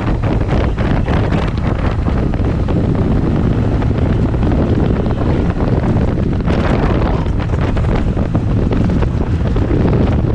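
Strong wind buffeting the microphone: a loud, steady, rumbling roar with a stronger gust about six and a half seconds in.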